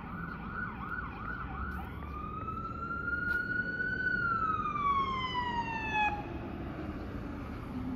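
Emergency vehicle siren approaching: a fast warbling yelp for about two seconds, then a long wail that slowly rises and falls and cuts off about six seconds in. Engine rumble follows.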